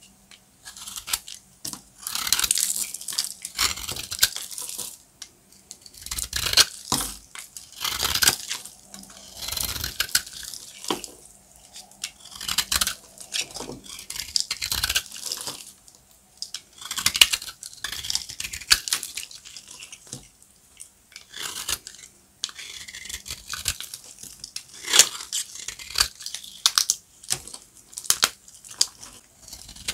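Dry, hard glam soap being cut and crunched, crisp crackling that comes in repeated bursts with short pauses between.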